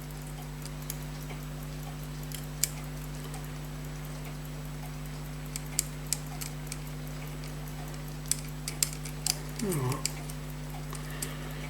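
Light, irregular metallic clicks from small tools handling a pocket watch movement during reassembly, over a steady electrical hum.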